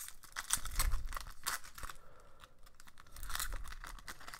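2018/19 SP Authentic hockey card pack wrapper being torn open and crinkled by hand, in two bouts of crackling: the first about half a second in, the second around three seconds in.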